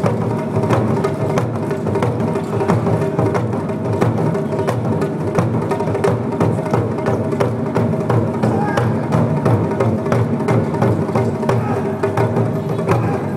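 Taiko ensemble drumming: several players beating large Japanese barrel drums with wooden sticks in a rapid, steady rhythm.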